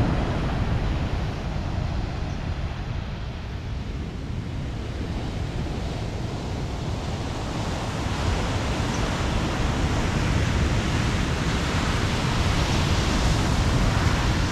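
Wind buffeting an action camera's microphone while cycling: a steady, heavy rush with a deep rumble, growing a little louder in the second half.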